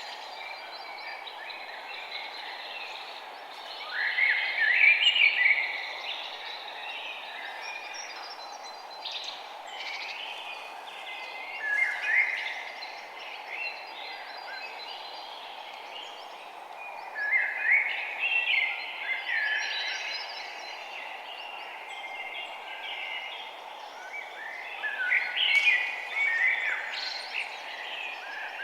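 Songbirds chirping and singing in bunches of quick notes that come and go every few seconds, over a steady background hiss.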